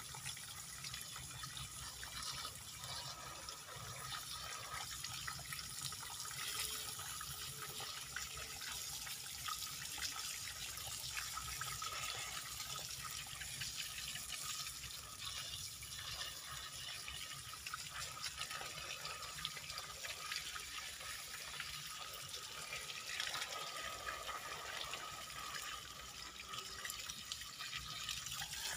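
Water from a garden hose spraying steadily onto a bonsai's exposed root ball and splashing through the roots as the soil is washed off them.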